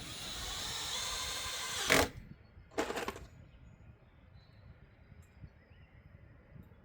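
Power drill driving a screw into a pocket hole in wood: a run of about two seconds that ends in a sharp crack as the screw seats, then a short second burst about a second later.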